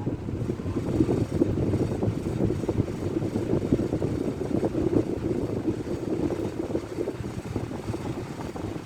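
Kmart K10 single-speed shop fan running just after a cold start, its blades giving a steady rush of air with a low hum.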